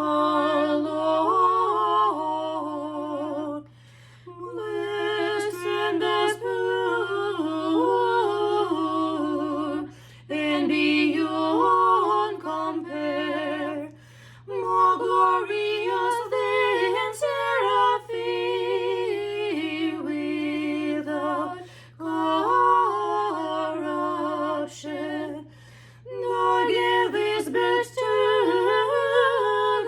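Unaccompanied voices singing a hymn in harmony, phrase by phrase with short breaks between lines.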